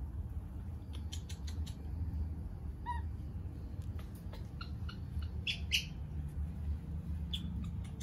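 Baby macaques wrestling, giving a few brief high squeaks, the brightest about two thirds of the way through, over a steady low background rumble.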